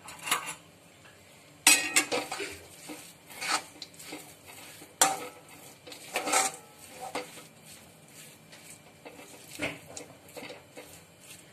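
A metal spatula scrapes and clatters against a metal kadai as grated mango and carrot are stirred and sautéed in oil. It goes in irregular strokes, with sharp clanks about two and five seconds in.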